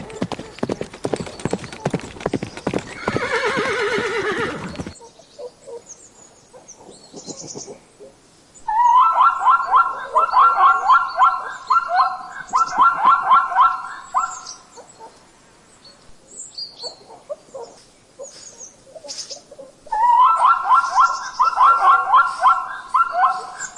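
A horse's hooves clip-clopping with a whinny over the first few seconds. After a pause come two long runs of rapid, pulsing animal calls.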